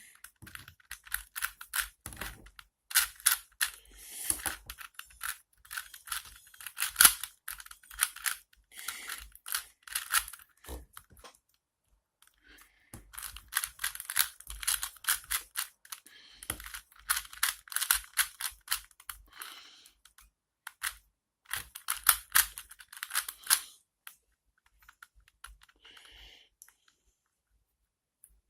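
2x2x2 Rubik's cube being turned by hand: runs of quick plastic clicks and clacks as the layers snap round, broken by a few short pauses and thinning out near the end.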